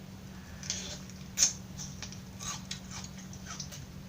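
Crunchy raw vegetables being chewed close to the microphone: irregular sharp crunches and clicks, the loudest about one and a half seconds in.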